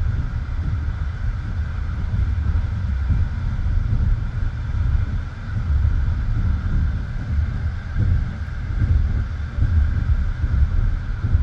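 Passenger train running at speed, heard from inside the carriage at the window: a steady, deep rumble of the wheels on the rails with wind rushing past the microphone and a constant hum above it.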